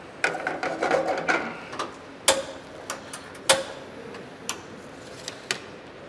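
Metal kitchenware clattering and clinking on a stainless-steel counter. A jumble of small knocks for the first second or so, then about half a dozen separate sharp clinks with a brief ring.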